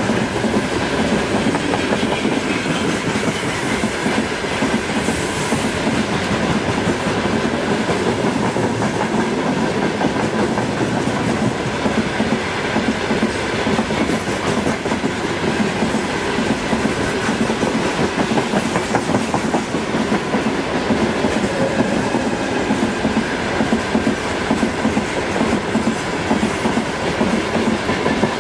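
Freight train of open gondola wagons rolling past, a steady clatter of wheels over the rail joints.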